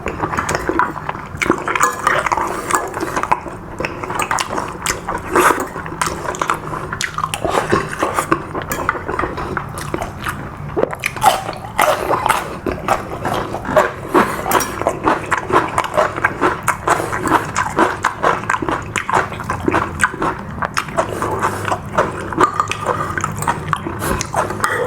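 A person eating close to the microphone: chewing and biting food, with many quick, irregular small clicks and smacks throughout.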